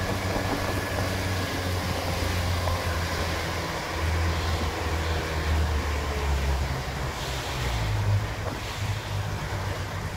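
A small fishing boat's engine running steadily under way, a low hum that swells a little in the middle, with water rushing along the hull and wind.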